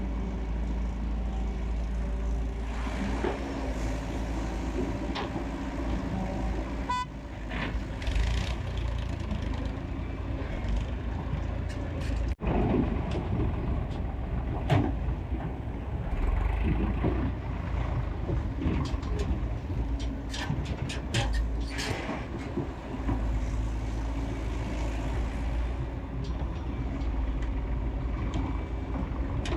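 Heavy earthmoving machine's engine running steadily, with scattered metallic clanks and knocks from the working machine.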